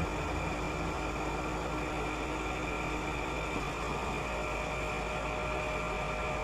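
Steady running of a Putzmeister 36-4 truck-mounted concrete pump, heard as an even mechanical hum with a few faint high whines.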